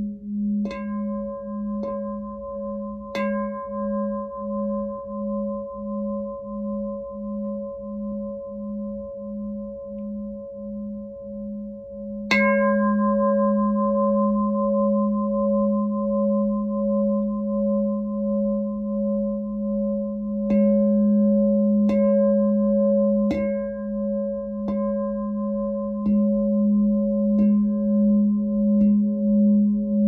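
Glass Lemurian Seed singing bowl ringing with a steady, wavering hum. It is struck three times near the start and once about twelve seconds in, then struck about every second and a half through the last third, each strike lifting the ring.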